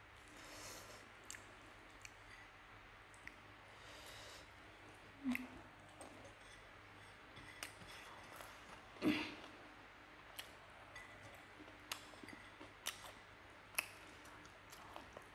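Quiet eating sounds from chicken wings being picked apart by hand and chewed: scattered small clicks and ticks, with two louder brief smacks about five and nine seconds in.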